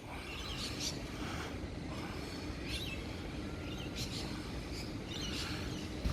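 Small birds chirping in short calls every second or so, some sliding down in pitch, over a steady low background rumble of outdoor noise.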